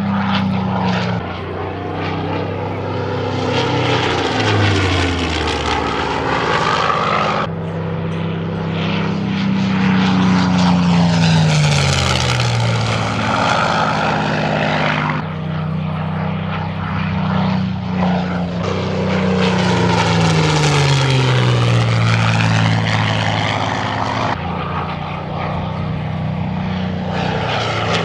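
Supermarine Spitfire Mk.XVI's Rolls-Royce Merlin V12 engine in a series of flypasts, each swelling and then falling in pitch as the plane goes by. The sound breaks off abruptly three times, where one pass is cut to the next.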